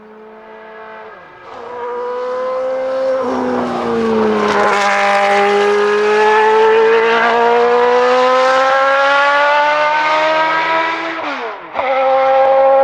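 Benetton B190 Formula One car's Ford-Cosworth V8 at full throttle on track. It grows from fairly distant to very loud. The pitch climbs steadily, then drops suddenly several times as it shifts up through the gears. There is a brief dip in level near the end.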